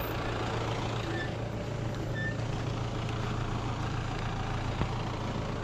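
SUV engine running steadily at low revs as the vehicle moves off slowly along a dirt track, a steady low hum.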